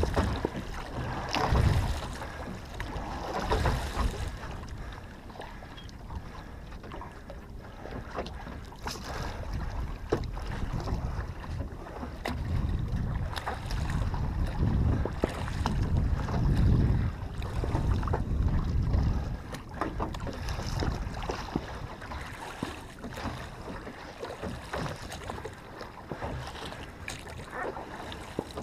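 Water sloshing and lapping against the hull of a small rowboat as it is rowed, in swells every second or two, with wind rumbling on the microphone and occasional light knocks from the oars.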